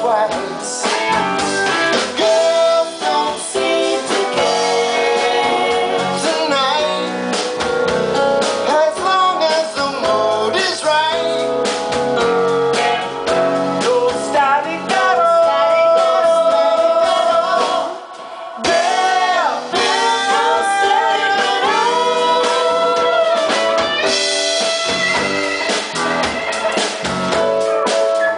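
Live band playing a song, with electric guitars and singing over keyboard and drum kit. The music drops away briefly about two-thirds of the way through, then carries on.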